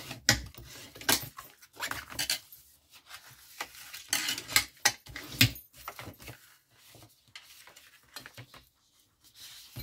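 Heavy double-sided scrapbook paper folded along its score lines, the creases burnished with a plastic bone folder: irregular crisp paper crackles, rubbing strokes and small clicks, thinning out near the end.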